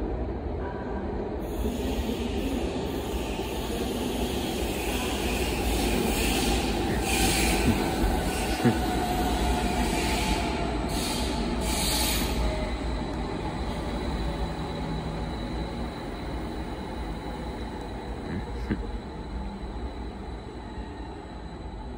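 BR 445 double-deck electric multiple unit pulling into an underground station: a steady rumble that builds for about the first half and then dies away. For the first twelve seconds or so it carries high squealing and hissing, with a faint whine falling in pitch as the train slows.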